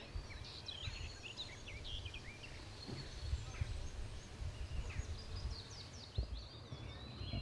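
Birds singing among trees, a busy mix of short chirps and whistles, over a faint steady low rumble.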